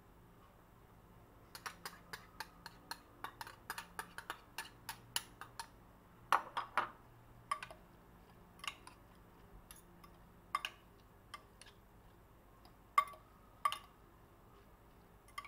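Metal spoon and fork clinking against a ceramic dish while tossing diced raw milkfish and onions for kinilaw: a quick run of light clicks over a few seconds, then scattered louder clinks.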